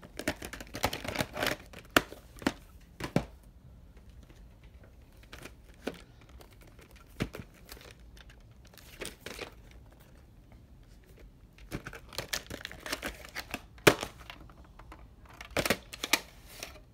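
Plastic clamshell VHS cases and a cassette being handled: scattered clicks, taps and plastic rustles. They come in clusters, at the start, around the middle and near the end, with a quieter stretch in between.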